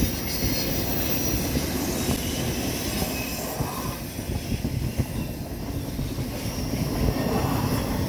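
Long freight train of container and autorack cars rolling past on the tracks: a steady rumble and clatter of steel wheels on rail.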